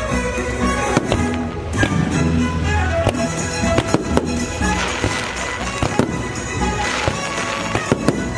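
Fireworks show: aerial shells bursting in about eight sharp bangs, with stretches of crackling, over the show's music soundtrack from loudspeakers.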